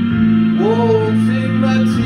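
A man singing a slow ballad into a microphone over sustained instrumental chords; his voice slides up into a held note about half a second in.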